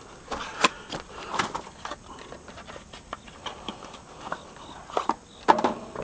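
Irregular light clicks and knocks of tools and parts being handled and set down on an air-conditioner condensing unit.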